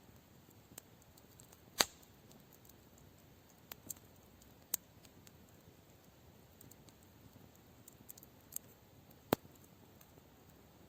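Campfire crackling: irregular sharp pops and snaps from burning wood over a faint steady background, with the loudest pops about two seconds in and again near the end.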